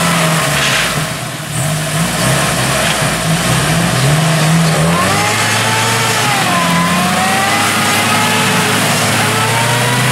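Jeep engines revving, the pitch rising and falling, as a mud-stuck Jeep spins its tyres while another Jeep pulls it out on a tow strap.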